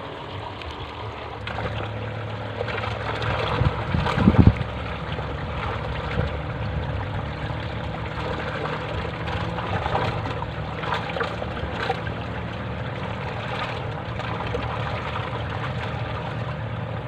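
Steady running and trickling water with a low, even mechanical hum under it. A short cluster of loud low knocks comes about four seconds in.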